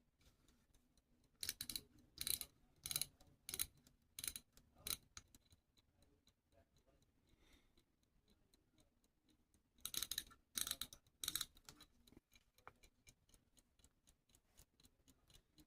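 Faint ticking of a freshly reassembled pocket watch that is running again, with clusters of louder clicks from handling the watch, between about one and a half and five seconds in and again around ten to eleven seconds.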